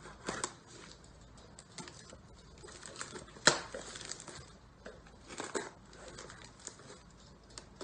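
Box cutter blade slicing through packing tape along a cardboard box, with scraping, tearing and crinkling of tape and cardboard. A sharp click about three and a half seconds in.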